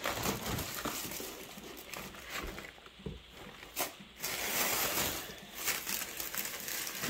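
Plastic wrapping crinkling and rustling as it is pulled off a headlight, with scattered clicks and knocks and a longer, louder rustle about four seconds in.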